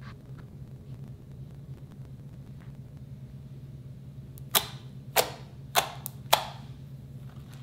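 Slime pressed down by a hand, giving four sharp pops of trapped air about half a second apart in the second half. A steady low hum runs underneath.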